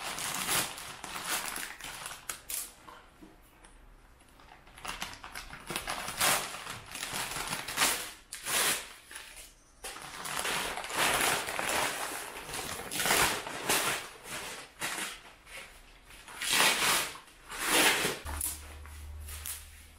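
Kraft paper wrapping and plastic film being torn and crumpled off a parcel by hand, in irregular bursts of rustling and ripping; near the end the bubble-wrapped box inside is handled.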